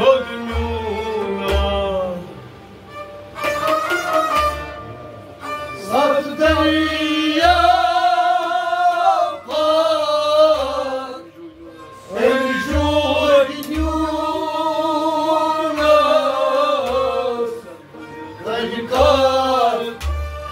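Kashmiri Sufi devotional song sung by men's voices in long held, ornamented phrases, with harmonium, a bowed sarangi and a plucked long-necked lute. Low drum thumps recur under the singing.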